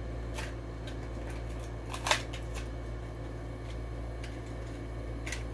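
Scattered clicks and crinkles of a diecast toy car's plastic blister package being handled and opened, the loudest crackle about two seconds in, over a steady low hum.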